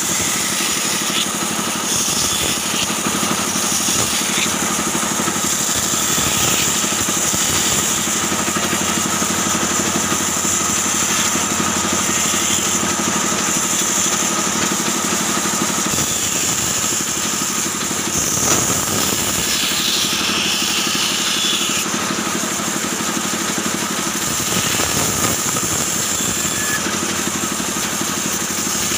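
Band saw motor and blade running steadily, a continuous machine hum with a steady high whine, while wooden blocks are fed across its table.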